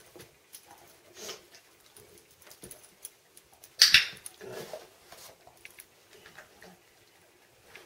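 German Shorthaired Pointer sniffing and mouthing at the trainer's hand and the basket's rope handle: scattered soft rustles and ticks, with one short, loud, breathy burst about halfway through.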